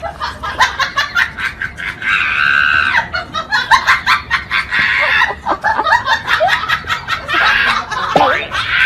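Battery-powered toy soldier firing its toy gun: the sound effect is a fast rattle of clicks, with a harsher noisy burst over it now and then.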